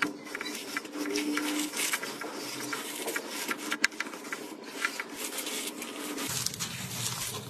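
Slime being squeezed and worked by hand, giving dense, irregular crackling clicks and pops.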